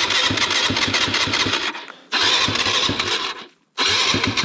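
Dirt bike engine being cranked on its electric starter in short repeated goes, three spells that start and stop abruptly with brief breaks about 2 s in and near the end.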